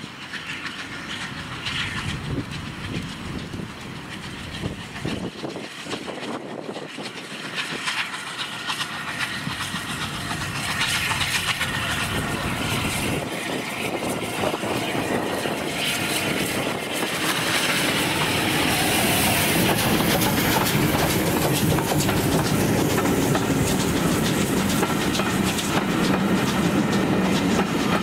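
Steam-hauled heritage train running by on the line, growing steadily louder over the first two-thirds, then holding steady and loud as it passes close.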